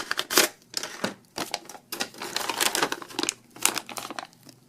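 Lightning-cable retail packaging being handled and pulled open by hand: irregular crinkling, rustling and crackling in quick uneven bursts.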